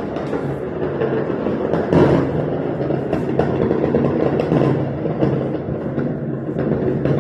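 Many fireworks going off across the neighbourhood at once: a dense, continuous rumble of distant bangs and crackling, with sharper cracks now and then, the loudest about two seconds in.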